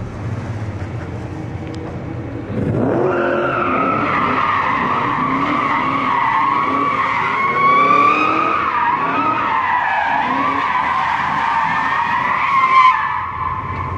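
Tyres squealing continuously as an Infiniti G35 sedan drifts in circles, its V6 revving up and down beneath the squeal. The squeal starts about two and a half seconds in, wavers in pitch, peaks just before the end and then dies away.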